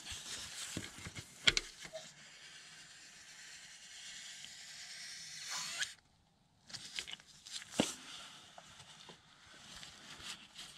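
Handling noise at a differential's fill hole: a few sharp clicks and knocks of tools and the fill hose against the metal housing. A steady hiss runs in the middle and cuts off abruptly about six seconds in.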